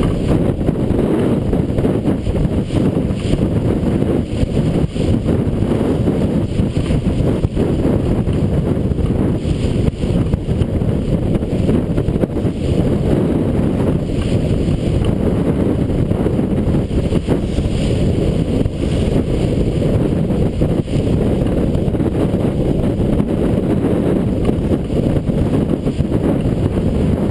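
Strong wind buffeting the microphone on a heeled racing sailboat, a steady low rumble, with water rushing and splashing along the hull under it.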